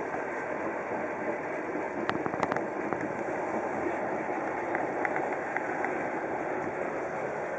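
Steady rumble and hiss of a sleeper train heard from inside a compartment, with a few light clicks about two seconds in.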